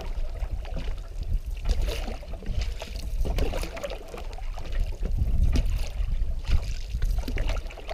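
Canoe paddles dipping and pulling through lake water, with splashing and trickling along an aluminium canoe's hull in an uneven rhythm over a steady low rumble.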